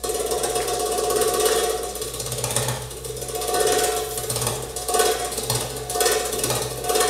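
Instrumental dance music over a PA system, starting abruptly at the beginning, with a busy clicking, rattling percussion texture and short tones repeating about once a second.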